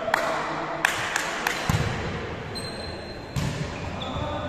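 A volleyball bouncing several times on a wooden sports-hall floor, then struck hard on the serve about three and a half seconds in, each impact echoing in the large hall.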